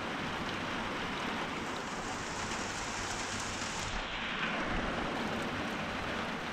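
Steady rain falling, an even hiss; it turns a little duller about four seconds in.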